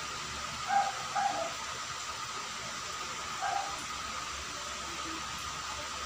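A few short animal calls, two close together about a second in and one more past the middle, over a steady hiss with a faint steady tone.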